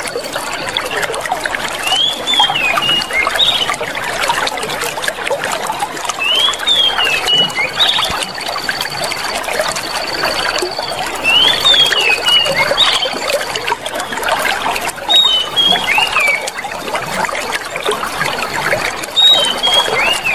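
Clear water flowing and trickling steadily. Over it a bird sings short whistled phrases of quickly rising and falling notes, repeated about every four seconds, and a thin high held note comes and goes.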